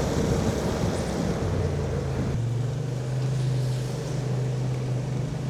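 Kymco AK550 maxi-scooter's parallel-twin engine running while riding, over a steady rush of wind noise. The engine note rises in two steps, about one and a half and two and a half seconds in, then holds steady.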